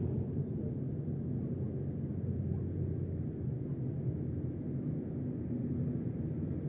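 A distant massed formation of Spitfire and Hurricane fighters flying over, heard as a steady low drone of their piston engines.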